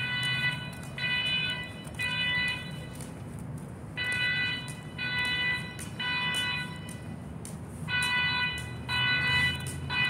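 Building fire alarm horns sounding the temporal-three evacuation pattern: sets of three short blasts about a second apart, each set starting every four seconds. It is the evacuation signal, sounding during a fire alarm test.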